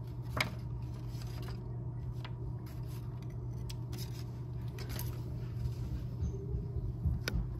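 Folded squares of black paper being handled and set down on a table: light rustles and a few sharp paper clicks, over a steady low hum.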